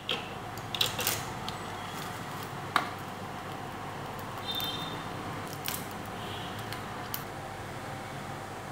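Plastic clicks and snaps of a TVS printer ribbon cartridge being opened by hand and its ribbon pack pulled out, a few scattered clicks with the sharpest one near three seconds in, over a steady background hiss.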